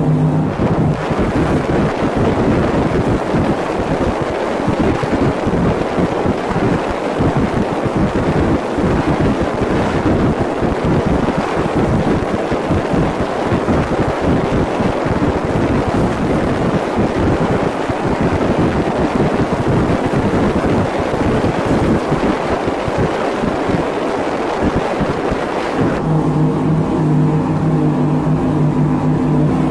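An engine running steadily under heavy wind noise on the microphone. About 26 seconds in, the wind noise stops and the engine's steady hum comes through clearly.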